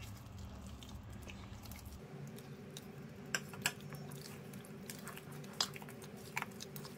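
Silicone spatula stirring thick cake batter with orange juice in a mixing bowl: faint wet squelching, with a few short clicks of the spatula against the bowl.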